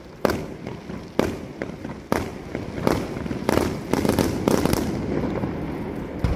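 Aerial fireworks bursting: sharp bangs about once a second, then a quicker run of several bursts past the middle, with rumbling crackle between them.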